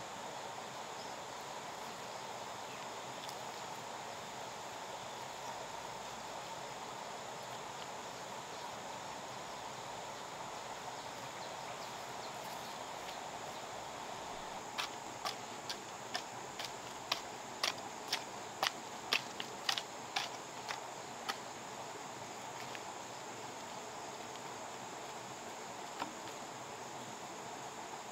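A steady drone of insects in the background. About halfway through, a run of roughly fifteen sharp clicks and knocks, two or three a second for about six seconds, from sugarcane cuttings and clods of soil being handled.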